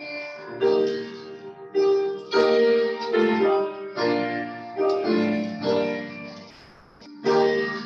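Grand piano played solo, chords struck one after another and left to ring out. Near the end the sound dies down almost to nothing before a new chord is struck.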